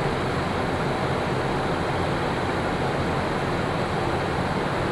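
Steady, even rushing noise in the flight deck of a Boeing 777-200LR in flight: airflow and ventilation noise with no changes or distinct events.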